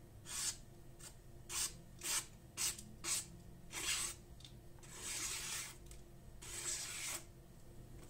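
A freshly sharpened gyuto kitchen knife, ground from a high-speed-steel saw blade, slicing through a sheet of paper held in the air: a quick series of short slicing hisses, then two longer drawn cuts near the end. It is a sharpness test of the finished edge, the blade cutting the paper cleanly.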